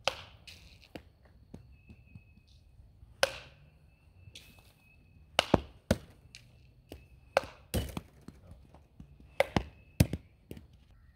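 Softball bat hitting soft-tossed softballs, a sharp crack about every two seconds, with smaller knocks between.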